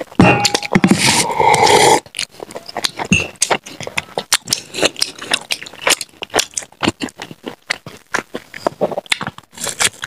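Close-miked chewing and crunching of fried snacks, with many short wet clicks and crunches. The loudest, densest crunching comes in the first two seconds.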